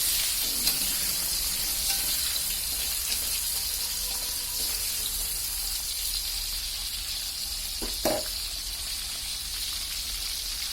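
Jengkol frying in hot oil in a pan, a steady sizzle, with one short knock of a utensil against the pan about eight seconds in.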